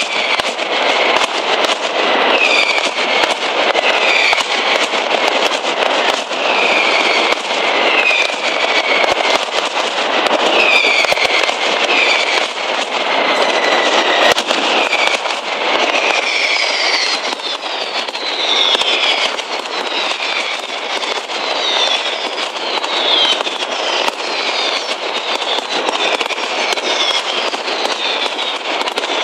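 Mascletà firecrackers going off in a dense, continuous barrage of bangs, with many whistling fireworks shrieking over it, each whistle falling in pitch.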